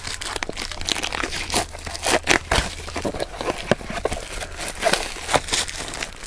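Plastic wrapping on a trading-card box crinkling and tearing as it is pulled open, in a run of irregular sharp crackles.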